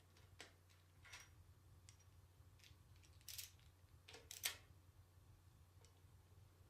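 Faint, scattered clicks and taps of hand tools and metal parts being handled during transmission teardown work, a few sharper ones around the middle, over a low steady hum.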